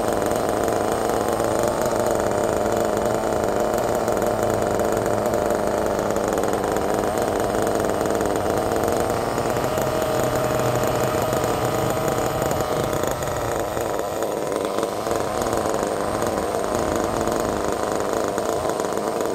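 Kyosho Inferno Neo 3.0's small nitro glow engine idling steadily while the 1/8-scale buggy sits still during its break-in. The note shifts slightly lower about two-thirds of the way through.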